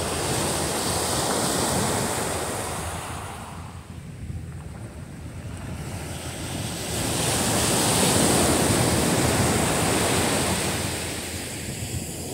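Loud surf breaking and washing up the beach, swelling and easing twice, the second swell about two-thirds of the way through being the louder.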